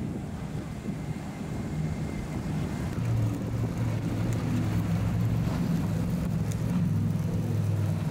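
MTI 43 high-performance powerboat running at speed through the inlet. A rush of wind and water comes first, then the boat's steady low engine drone grows louder about three seconds in as it passes close.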